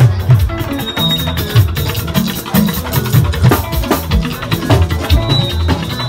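Live band music played loud through PA loudspeakers, driven by a steady beat of heavy drum hits and bass.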